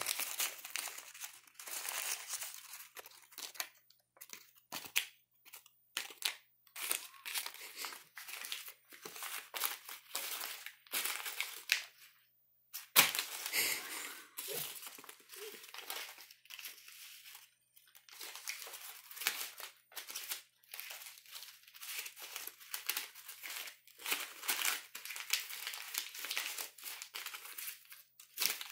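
Paper banknotes crinkling and rustling in irregular bursts as a capuchin monkey crumples and rolls them in its hands, with one sharp smack about halfway through.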